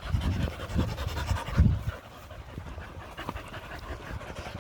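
English Springer Spaniels panting hard, with some louder low bumps in the first two seconds.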